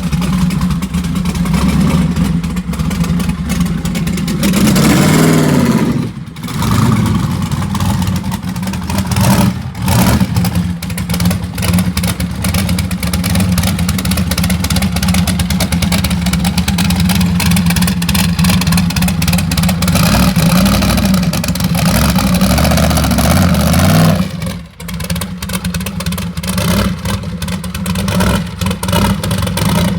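A car engine running at a fairly steady speed, with a few short breaks in the sound about six, ten and twenty-five seconds in.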